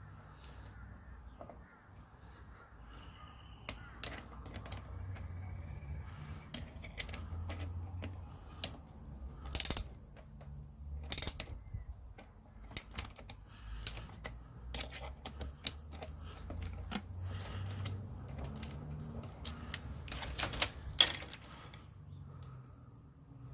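Irregular metal clicks and clinks of a wrench working a chain press tool, pressing the side plate onto a motorcycle drive chain's connecting link, with a few louder clanks.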